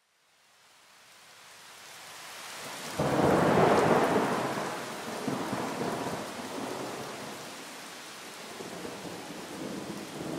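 Steady rain fading in from silence, then a sudden clap of thunder about three seconds in that rumbles and dies away slowly while the rain goes on.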